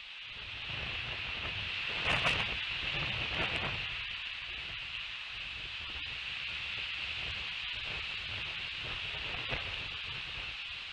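Outdoor ambience at a bald eagle nest high in a tree: wind rumbling on the microphone and rustling through the branches, over a steady high-pitched hiss. A louder rustle with a few brief crackles comes about two seconds in and again a second later.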